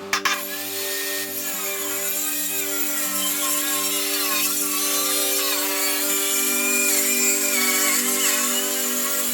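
Power saw cutting through a solid wood worktop, its pitch wavering as it works through the cut, over background music.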